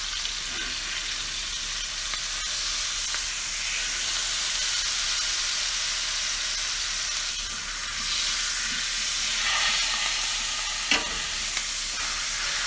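Bone-in venison neck roast sizzling steadily as it sears in smoking-hot canola oil in a cast iron skillet, with a single knock near the end.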